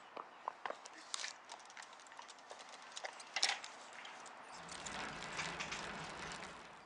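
Scattered light clicks and taps at an uneven pace over faint background hiss, with a low steady hum coming in about four and a half seconds in.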